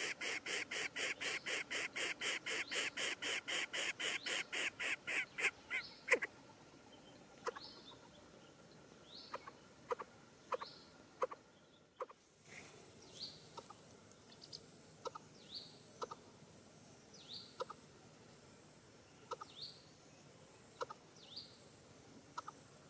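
Coucal chick begging: a rapid, even series of harsh calls, about five a second, that stops about five or six seconds in. After that, short sharp chirps come singly, about once a second.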